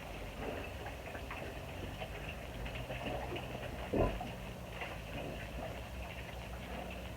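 Pigs moving about in a pen, with scattered light ticks and knocks and a single louder thump about four seconds in.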